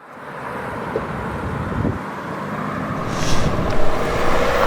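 A car driving on the road, engine and road noise fading in from silence and growing steadily louder.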